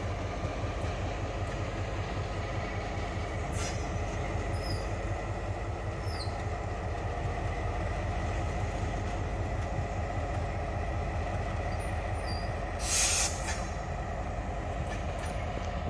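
Taiwan Railways R100-class diesel-electric locomotive running steadily as it moves the train slowly, a low engine drone. There is a brief hiss about thirteen seconds in.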